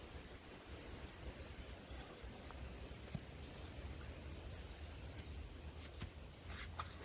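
Faint riverside ambience: a steady low rumble with a few thin, high bird calls in the middle, the clearest about two and a half seconds in. A few light clicks come near the end.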